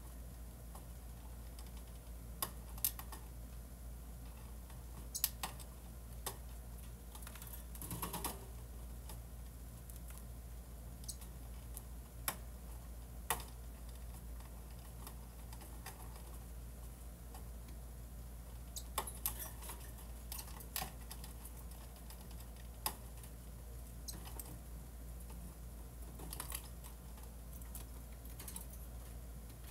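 Scattered, irregular light taps and clicks, a few at a time with gaps between, over a steady low hum; the densest cluster comes about eight seconds in.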